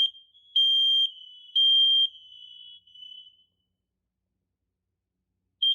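Kidde KN-COSM-XTRBA combination smoke and carbon monoxide alarm sounding its self-test. Loud, high-pitched half-second beeps about a second apart end the three-beep fire pattern, followed by about two seconds of silence. A quick run of short carbon monoxide beeps starts near the end.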